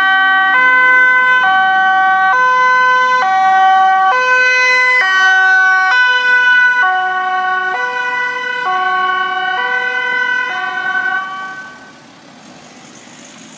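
Dutch ambulance's two-tone siren, sounding on an A1 (highest-urgency) emergency run: it alternates between a high and a low tone, each held just under a second. It fades away about eleven seconds in as the ambulance drives off, leaving faint traffic noise.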